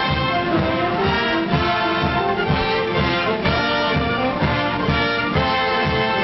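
Orchestral background music led by brass, over a steady low beat about twice a second.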